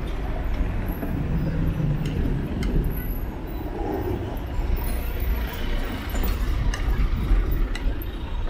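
Street ambience heard from a moving bicycle: a steady low rumble of wind on the camera microphone, with vehicle traffic and faint voices.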